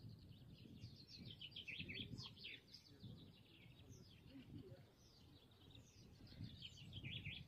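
Faint birdsong: small birds chirping and twittering in quick high down-slurred notes, busiest a second or two in and again near the end, over a low rumble of wind.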